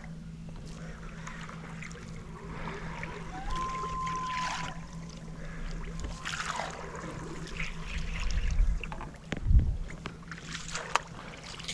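Water lapping against a fishing boat's hull, over a steady low hum. A short whistle-like tone sounds about three and a half seconds in, and a few low thumps come near the end.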